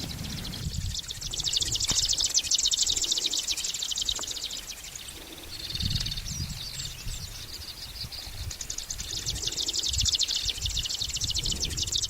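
Locustella warbler's reeling song: a fast, even, high-pitched trill, fading in the middle and swelling again toward the end, over a low rumble.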